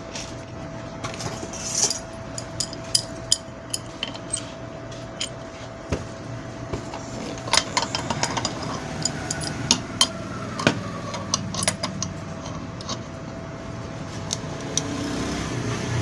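Scattered light metallic clicks and clinks as an adjustable wrench is set and fitted onto the shaft nut of a ceiling fan motor, over a steady faint hum.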